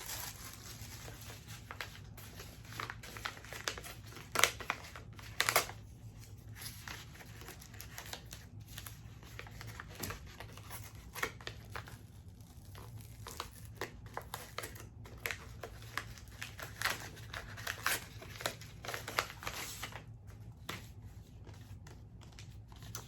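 Wrapping paper rustling and crinkling as it is handled and pulled away from a packed box, in scattered short bursts with a couple of sharper crackles about four and five seconds in.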